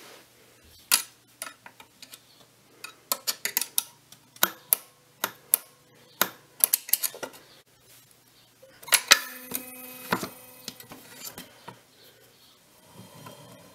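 Webster-Chicago 346 record changer mechanism running through a change cycle: irregular metallic clicks and clatters of its levers and gears, with a brief ringing tone about nine seconds in.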